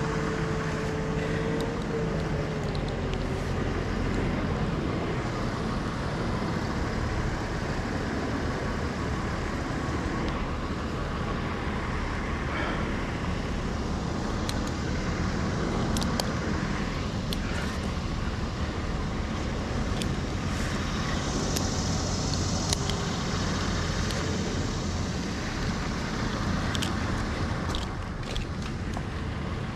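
Steady engine rumble, like a running vehicle or traffic, with a few faint clicks.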